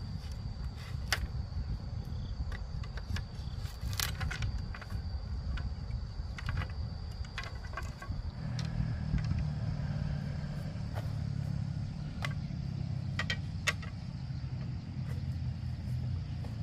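A small engine running steadily, its note growing stronger about halfway through, with scattered clicks and rattles over it and a steady high-pitched tone throughout.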